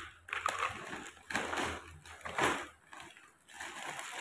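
Gift-wrapping paper rustling and tearing in a series of irregular bursts as a present is unwrapped by hand.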